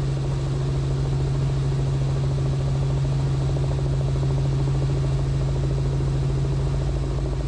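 Robinson R44 helicopter in flight: a steady drone of its engine and rotor, with a strong low hum that holds one pitch throughout.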